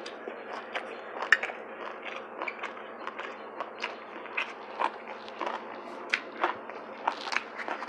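A person eating: crunchy bites and chewing, heard as irregular short crackly clicks, a few each second, the sharpest about a second in.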